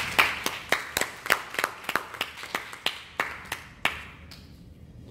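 A small audience clapping: scattered, uneven hand claps that thin out and stop about four seconds in.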